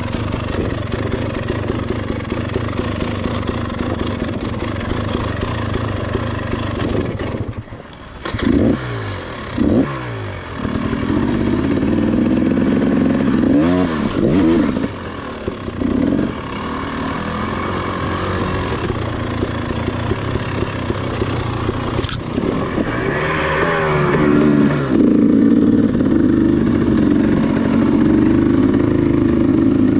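KTM 300XC two-stroke dirt bike engine lugging at low revs, then blipped up and down in several short rev bursts and held at higher revs. There is one sharp knock about two-thirds of the way through.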